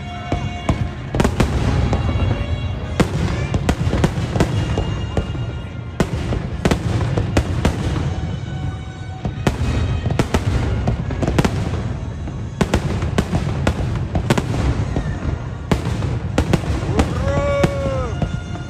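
Fireworks display: a continuous, irregular barrage of sharp bangs and crackles from bursting shells over a low rumble.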